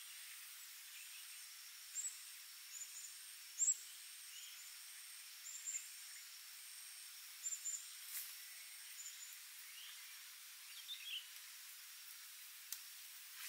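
Forest ambience after rain: a steady, faint, high-pitched insect drone, with short high chirps repeating at irregular intervals and a few brief bird calls.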